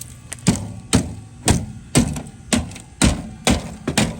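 Repeated sharp knocks, about two a second, while ice is being cleared off an air conditioner; the knocks stop near the end.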